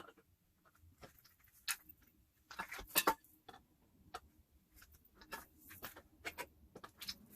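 Irregular light clicks and taps of garment-rack pieces being fitted together by hand, with a pair of louder knocks about three seconds in.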